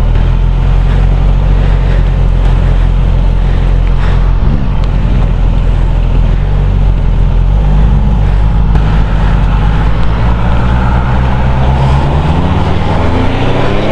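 Suzuki GSX-S1000GT inline-four engine running steadily under way, over a rushing noise of wind and tyres on a slushy road. Near the end the engine note climbs as the bike accelerates.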